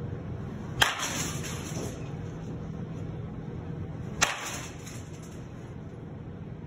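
Two sharp whacks of baseball batting practice, about a second in and again some three seconds later, each trailing off in a short rush of noise.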